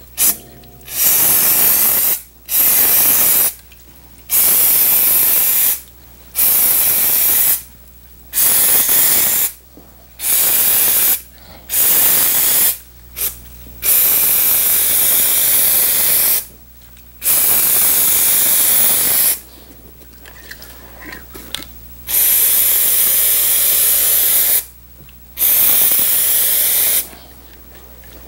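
Aerosol spray adhesive can hissing in about a dozen short bursts, each one to three seconds long with brief pauses between, as adhesive is sprayed onto a foam seat cushion.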